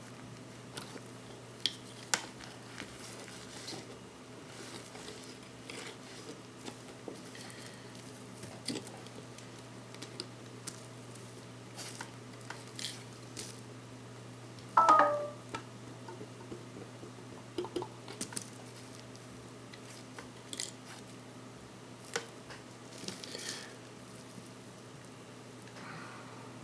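Faint scattered clicks and short rubbing noises of small handwork on a watch bench, as stains are rubbed off a watch movement's metal circuit block cover, over a steady low hum. About halfway through comes one short, louder squeak that falls in pitch.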